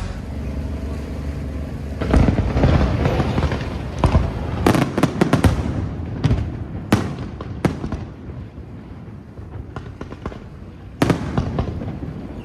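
Fireworks display: aerial shells bursting with sharp bangs, one loud about two seconds in, then a quick cluster of bangs around five seconds and single ones after, over a continuous rumble.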